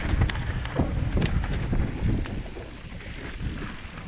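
Mountain bike descending a dirt trail at speed: wind rushing over the camera microphone with the tyres rumbling on the dirt. Sharp rattles and knocks from the bike over bumps come mostly in the first couple of seconds, then it runs a little quieter.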